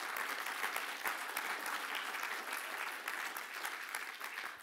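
Audience applauding, many hands clapping together; the applause thins out near the end.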